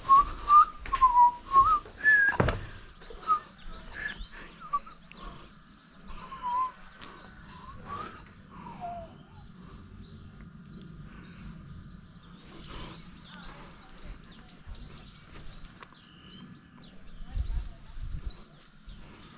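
Small birds chirping over and over in short high notes, with a louder warbling call and a couple of sharp knocks in the first few seconds.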